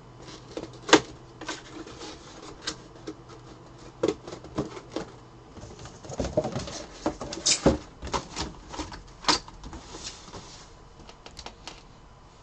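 Handling noise as a clear plastic mini-helmet display case, its paper insert and its cardboard box are turned over and set down on a table. It is an irregular scatter of clicks, knocks and rustles, with the sharpest knocks about a second in and again around seven and a half and nine seconds in. A faint low hum stops about halfway through.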